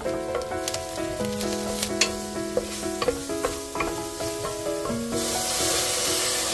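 Wooden spatula stirring and scraping sliced shiitake mushrooms and onion as they fry in a stainless steel pot, with sharp clicks as it strikes the pot. About five seconds in, a loud steady hiss as water is poured into the hot pot. Background music with a simple melody plays throughout.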